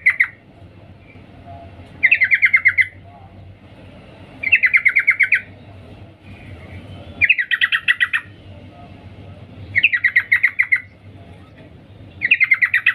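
Female yellow-vented bulbul (trucukan) giving its 'cuk cuk' call to a male: a quick chattering burst of about eight notes, repeated every two and a half seconds, five times over a faint steady low hum.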